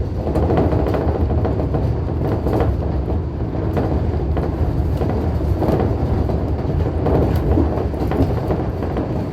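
Shonan Monorail suspended car running between stations, heard from inside the cabin: a steady running noise, mostly low, with faint scattered clicks and rattles.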